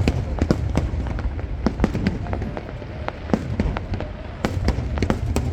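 Aerial fireworks bursting: an irregular string of sharp bangs and crackles over a steady low rumble.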